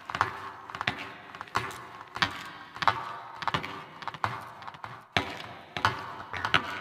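Cartoon clock ticking: evenly spaced sharp ticks with a short metallic ring, about one and a half a second.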